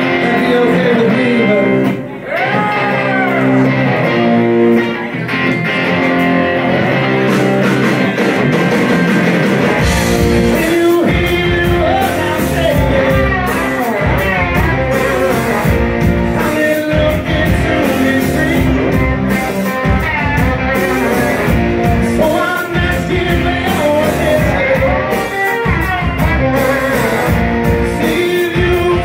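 Live rock band: electric guitars playing with bending lead lines, joined by bass and drums about ten seconds in, then the full band with singing.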